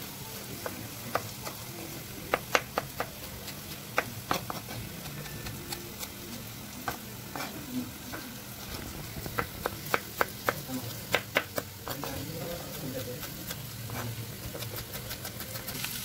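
Kitchen knife cutting tomatoes on a plastic cutting board: irregular sharp knocks of the blade hitting the board, coming thickest about ten seconds in, over a steady low hiss.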